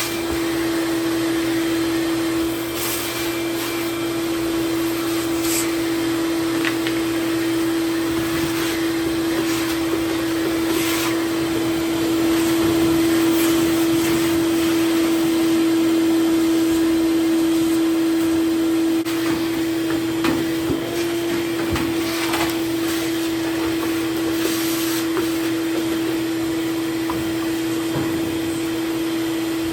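Vacuum cleaner running steadily, sucking thick lint buildup out of the bottom of a gas dryer's cabinet: a constant motor whine over a rushing hiss, with a few short swells of hiss as the nozzle draws in lint.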